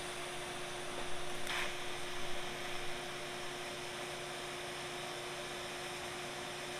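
TIG welding arc at about 125 amps: a steady electric hum and hiss, with a short burst of louder hiss about a second and a half in.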